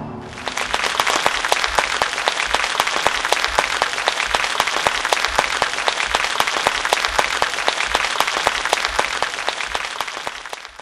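Theatre audience applauding: many hands clapping, swelling up within the first second, then holding steady and cutting off abruptly near the end.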